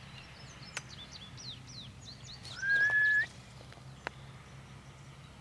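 Small birds chirping in quick, falling notes, with one loud, steady whistle about two and a half seconds in that lasts under a second and rises at the end.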